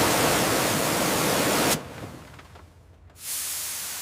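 Aerosol spray paint hissing in two long bursts, marking a stress fracture. The first burst cuts off a little under two seconds in. A quieter second burst starts about a second later and slowly fades.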